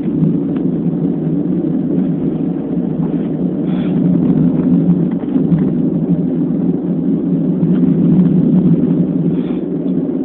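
Wind buffeting a phone's microphone: a steady, loud, low rumble.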